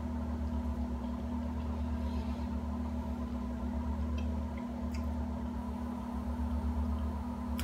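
A steady low hum, like an appliance or motor running in a small room, with a few faint ticks midway.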